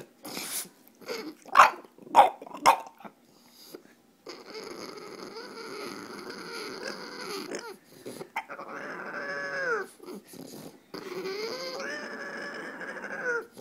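French bulldog making vocal 'talking' sounds: a few short sharp sounds in the first three seconds, then three long drawn-out whining moans, the second one falling in pitch.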